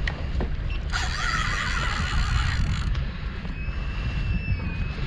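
Fishing reel drag giving out line as a large hooked fish runs: a loud buzzing burst of about two seconds starting about a second in, then a thinner steady whine. The fish is taking line against the drag faster than the angler can stop it.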